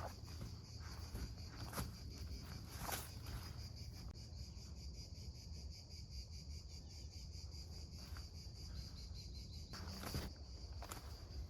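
Insects, cricket-like, trilling steadily in a high, evenly pulsing chorus, with a few footfalls on the forest floor.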